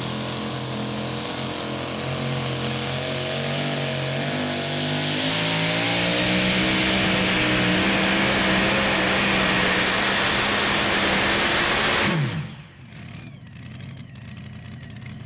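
Two-wheel-drive pulling truck's engine at full throttle while pulling the sled. Its pitch climbs over the first few seconds, then holds high and steady. About twelve seconds in it stops suddenly, its pitch dropping as it winds down.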